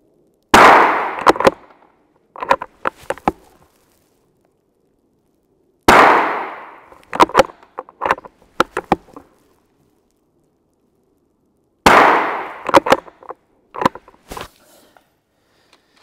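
Three shots from a bolt-action .22 rimfire rifle firing Browning Pro 22 ammunition, about six seconds apart, each ringing on with an echo. After each shot comes a quick run of metallic clicks as the bolt is worked to eject the case and chamber the next round.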